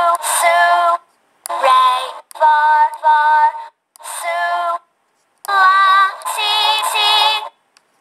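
Homemade voice-sample electronic keyboard playing a short tune of about seven separate notes, each key sounding a sampled voice syllable at a different pitch, a few of them with a wavering pitch.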